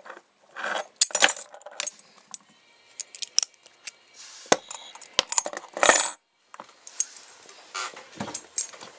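Yale brass padlocks and steel picking tools clinking and clattering as they are handled and set down on a shelf: a string of sharp metallic clicks and short rattles, the loudest about six seconds in, with a duller knock near the end.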